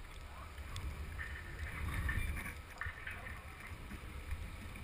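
Muffled underwater noise picked up through a speargun-mounted camera's housing: a steady low rumble of water moving past it, with a faint uneven hiss.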